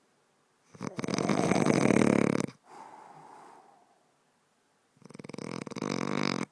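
Snoring: two loud, rattling snores about four seconds apart, the first followed by a softer breath out, the second stopping abruptly.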